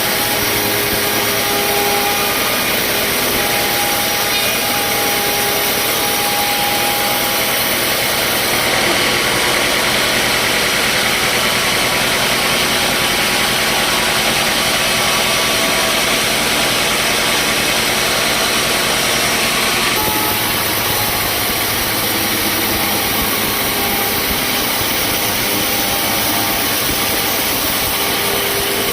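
Sawmill machinery running steadily: a loud, even engine-like drone with a few held tones through it. The sound changes abruptly about nine seconds in and again about twenty seconds in.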